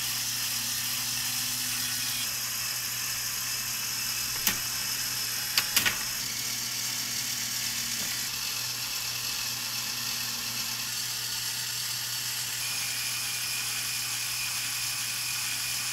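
Lego Technic gear mechanism driven by an electric motor, running with a steady whir and low hum, and a few sharp clicks near the middle.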